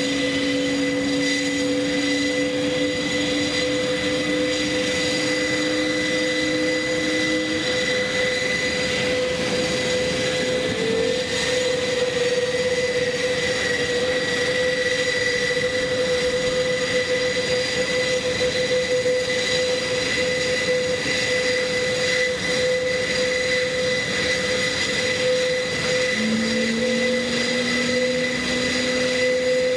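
Airbus A400M Atlas's four Europrop TP400-D6 turboprop engines idling with the propellers turning, a steady whine made of several held tones over a constant rush. A lower tone fades out several seconds in, and another comes in near the end.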